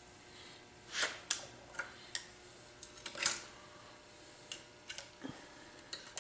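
Irregular light metallic clicks and clinks of hand tools working on an Ingersoll Rand 2545 air compressor pump during disassembly, the loudest about three seconds in.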